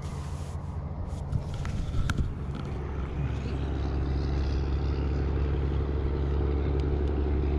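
Boat's outboard motor running steadily, growing a little louder and fuller about three and a half seconds in, with a few light clicks and knocks from gear in the boat.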